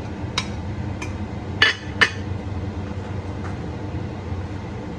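A metal spoon scraping and knocking blended pepper off a plate into a steel pot: a handful of sharp clinks, the two loudest close together about a second and a half and two seconds in, over a steady low hum.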